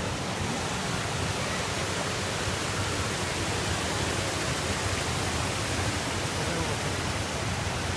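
Steady rushing roar of falling water from a waterfall, even and unbroken throughout.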